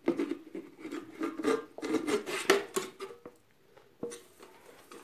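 A knife blade prying and scraping at the metal lid of a tin-can money box: a quick run of scrapes and clinks that stops about three seconds in, followed by a couple of lone clicks.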